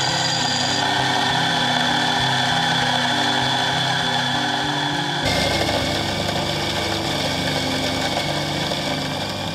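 Electric espresso grinder running, its motor and burrs grinding coffee beans into a portafilter with a steady whirring hum. The sound shifts abruptly about five seconds in and turns deeper.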